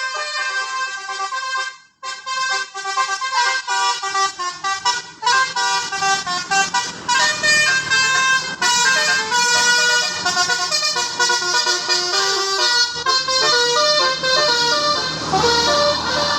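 A bus's 'telolet' basuri musical air horn plays a fast tune of quickly changing notes. It breaks off briefly about two seconds in, and a rushing noise grows under the horn near the end.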